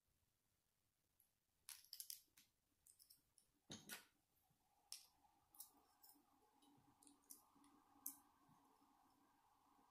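Small plastic Lego bricks clicking as they are handled and pressed together: a scatter of light irregular clicks starting about two seconds in, with a somewhat heavier knock near the middle.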